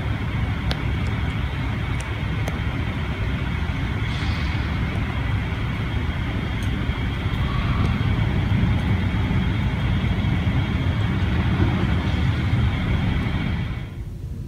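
Steady rumble of a running vehicle engine, with a faint steady high whine above it; the rumble drops away sharply near the end.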